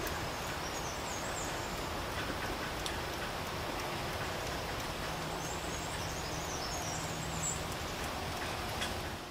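Steady rain falling. Twice, a small bird's high twittering song sounds in the background: once near the start and again for a couple of seconds midway.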